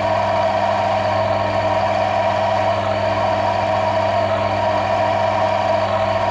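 Bench wear test rig running steadily: its motor turns a shaft against an oil-lubricated roller bearing held under load by a hand lever, giving a steady whine over a low hum. The oil carries a micro-ceramic additive, and at this load the rig runs without the friction and wear seen in the untreated test.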